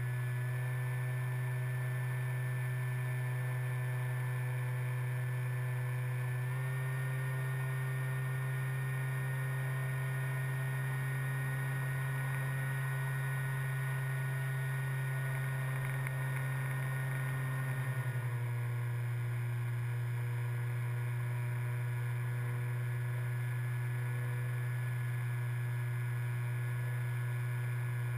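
Motor and propeller of a radio-controlled model aircraft, heard from its onboard camera: a steady hum that steps up slightly in pitch about six seconds in and drops back about eighteen seconds in.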